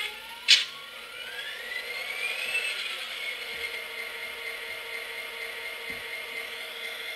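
An MTH Protosound locomotive's onboard sound system playing its diesel start-up sound through the speaker: a sharp burst about half a second in, then a rising whine that climbs for a couple of seconds and settles into a steady idle hum. This is the sign that the locomotive has powered up on the homemade BCR.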